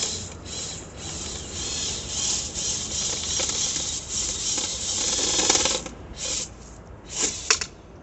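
Dryer vent cleaning tool working through the lint-clogged vent duct: a steady rasping, scraping noise that stops about six seconds in, then two short bursts near the end.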